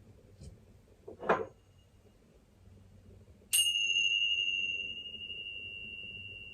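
A small metal chime is struck once about three and a half seconds in. It rings on a single high, pure tone that slowly fades, with brighter overtones that die away first. A brief knock comes just over a second in.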